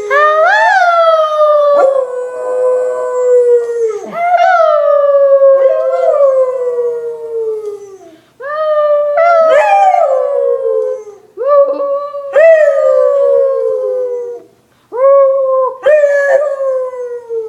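Puggle howling over and over, a long run of howls that each rise briefly and then slide slowly down in pitch, with short breaks between them.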